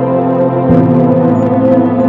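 Ambient music: a slow, sustained chord of many held tones, with the bass notes changing to a new held note about two-thirds of a second in.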